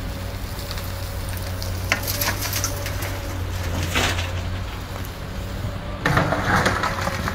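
Komatsu PC200 hydraulic excavator's diesel engine running steadily while its bucket works: a short rush of soil pouring into the dump truck's bed about four seconds in, then a louder, longer scrape of soil and stones as the bucket digs into the pile near the end.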